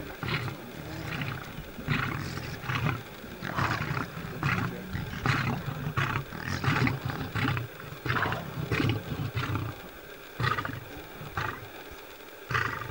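Lion and spotted hyenas calling at a kill: a low growl running under a string of short, sharp calls, about two a second, that thin out near the end.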